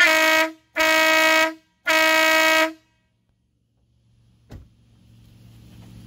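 WOLO 619 Big Bad Max electric air horn sounding three short blasts in a row, the third a little longer. A single click follows a couple of seconds later.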